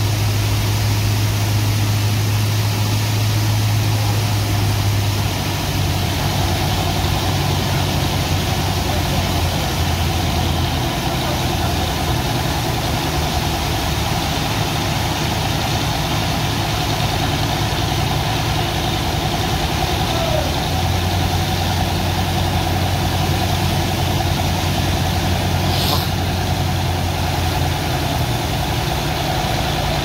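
Steady hum of the pump engines running the sand-dredging suction and the water jet, with the hiss of a high-pressure water jet spraying onto the sand. The engine hum shifts slightly in pitch a few times.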